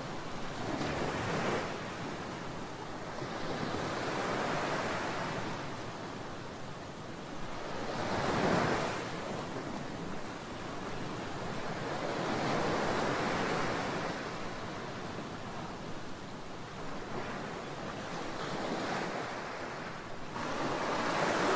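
Concrete Genie floor grinder running, its grinding head working the surface of a concrete floor with a steady, rushing grind that swells and eases every few seconds as the machine is pushed back and forth.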